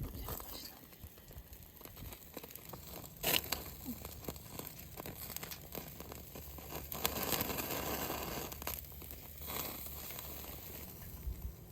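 Crinkling, rustling handling noise, with a sharp knock a little over three seconds in and a denser stretch of rustling a few seconds later.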